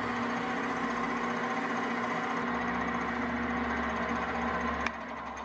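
Metal lathe running steadily, spinning an engine valve that is being polished with sandpaper and wax. There is a single click near the end, after which the sound drops quieter.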